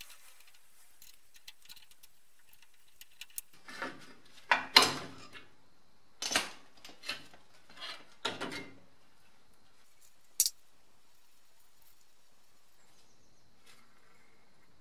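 Metal clattering and scraping as the wheel hub is worked off the front stub axle of a BMW E30 strut, a run of short knocks and scrapes over about five seconds, then one sharp click. The wheel bearing inside has broken up.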